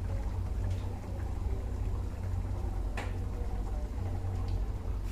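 Creamy dal makhani cooking in a pan on a gas stove: a steady low rumble with faint soft ticks, and one sharp click about three seconds in.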